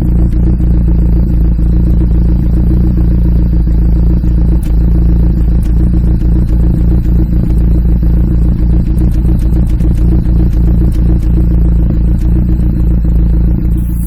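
Toyota 22R-TE turbocharged four-cylinder engine idling roughly: a steady, loud low running note with scattered ticks over it.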